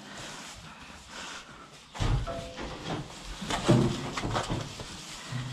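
Young beef bulls in a barn: about two seconds in, a low rumble of the animals moving starts, and a short, low moo comes a little past halfway.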